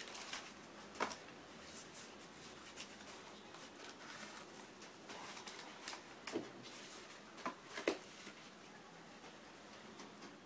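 DVD discs and their pink disc sleeves handled on a tabletop: light rustling of the sleeves with scattered clicks and taps, the sharpest about a second in and near eight seconds.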